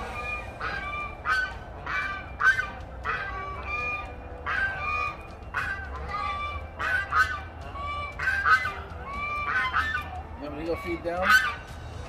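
Domestic white geese honking over and over, short nasal honks about one or two a second, calling to their keeper as he brings them worms.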